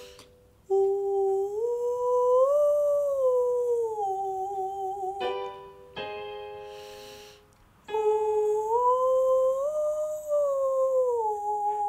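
A woman sings a soft head-voice "oo" vocal exercise: two pure, gentle phrases that step up and glide back down, the second pitched a step higher. A keyboard chord in between gives the new starting note. The tone is meant to be relaxed, neither loud nor breathy, with the larynx kept back.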